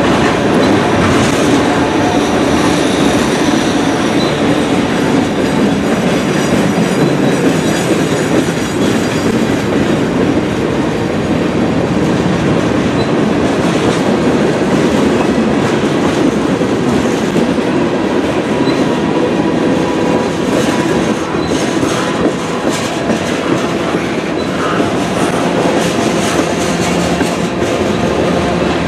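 Freight train's tank cars and boxcars rolling past close by: a steady rumble of steel wheels on the rails, with rhythmic clicking as wheels cross rail joints.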